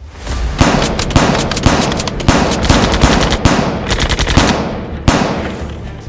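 Rapid automatic gunfire in quick strings of shots, starting abruptly, with one more burst about five seconds in.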